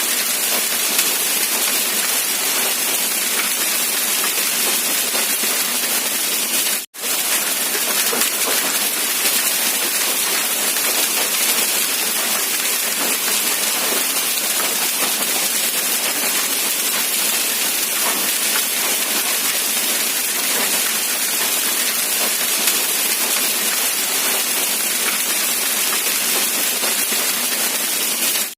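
Steady rain hiss, an even wash of falling rain. The sound drops out for a split second about seven seconds in, then resumes unchanged.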